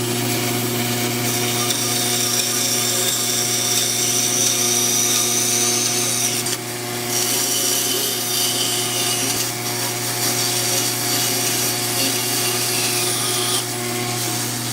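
Electric woodworking power tool running steadily on Baltic birch plywood, its motor humming at a constant pitch over a noisy hiss of the cut. The sound dips briefly about six and a half seconds in, then carries on.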